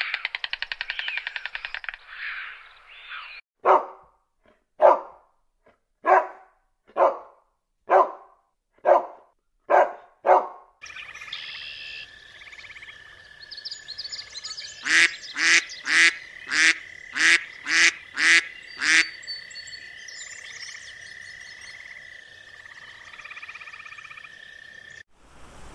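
A white stork clattering its bill in a fast rattle that fades out within the first few seconds. About eight loud calls follow, roughly a second apart. Then a white domestic duck quacks six or seven times in quick succession over a steady high tone in the background.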